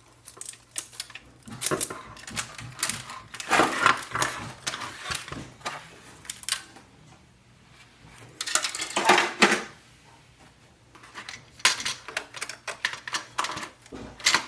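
Small plastic clicks and clatter from an Epson WorkForce 2860 printer's parts and cable connectors being handled and unplugged during disassembly, with two longer scraping rustles about four and nine seconds in.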